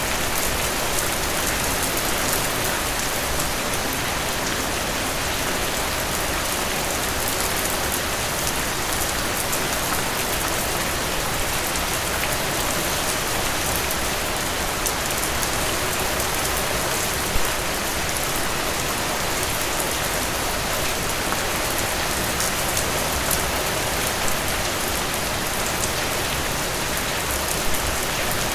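Heavy rain falling steadily, a dense even patter of drops hitting surfaces, with one brief louder hit about two-thirds of the way through.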